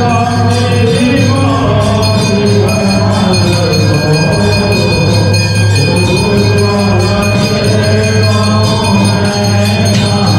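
A man singing a Hindu aarti hymn through a microphone and loudspeaker, with bells ringing along.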